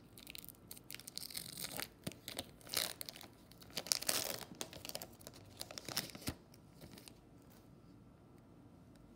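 A 2019 Bowman Platinum foil card-pack wrapper being torn open and crinkled by hand, in a run of irregular crackling tears. It is loudest about four seconds in and stops about six seconds in.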